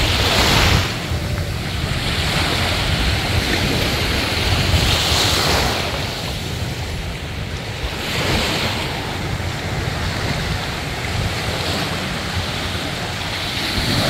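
Small surf breaking and washing up the sand at the water's edge, swelling every few seconds, with wind buffeting the microphone.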